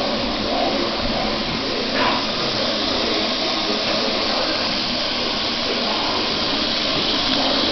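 Mixer tap running steadily into a stainless steel sink, with a small knock about two seconds in.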